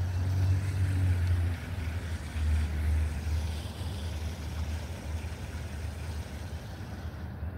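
Electric trolling motor running at low speed, a steady low hum that is a little stronger for the first few seconds.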